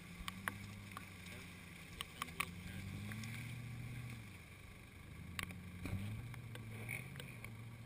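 Jeep Grand Cherokee WJ's engine under load as the SUV crawls up out of a rutted ditch. The engine note rises, falls back about four seconds in, then rises again about six seconds in. A few sharp clicks are heard along with it.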